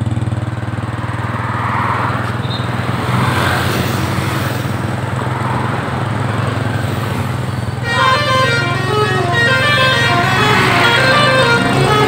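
A bus engine runs with a steady low hum. About eight seconds in, the bus's basuri telolet air horn starts playing a tune of short notes stepping up and down.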